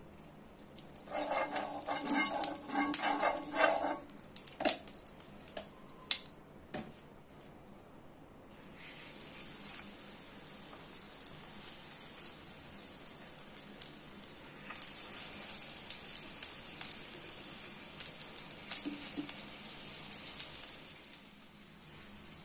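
Oil sizzling and crackling on a hot iron tawa as a filled roti roll toasts, starting about nine seconds in. Before that, about a second in, comes a loud run of short pitched sounds lasting about three seconds, with a few sharp clicks after it.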